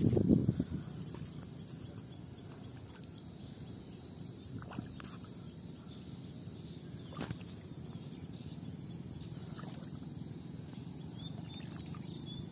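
Steady high-pitched drone of insects over soft swishing of shallow water as a cast net is drawn in by its rope. A brief loud low rush comes in the first second, and there are a couple of faint clicks.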